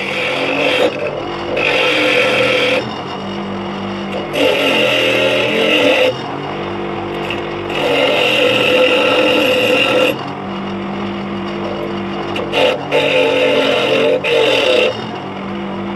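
Bench grinder motor running with a steady hum while a metal boat hook is pressed against the grinding wheel again and again. About six grinding passes, each one to two seconds long, rise over the hum and drop back as the hook comes off the wheel.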